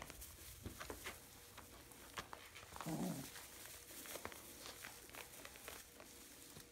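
Faint rustling and light crackling of straw bedding as puppies move over it, scattered small ticks and pattering, with one brief low sound about three seconds in.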